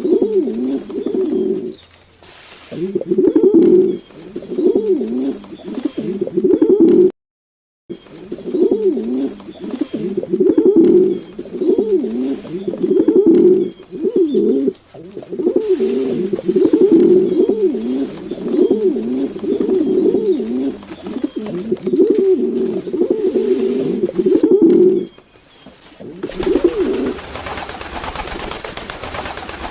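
Domestic pigeons cooing, one rolling coo after another. There is a brief dead silence about seven seconds in, and near the end the cooing stops and a steady rushing noise takes over.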